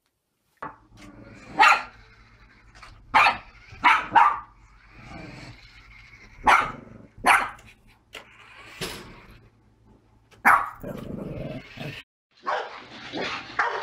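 Boston terrier barking in sharp single barks, about eight of them at irregular intervals a second or so apart, over a steady low hum.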